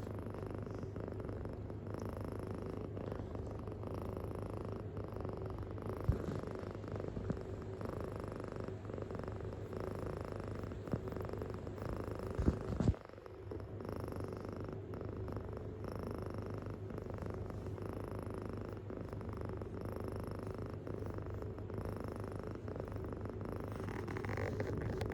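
Kitten purring deeply and steadily. A brief knock comes about six seconds in, and a short cluster of louder knocks comes about halfway, after which the purr drops away for a moment before resuming.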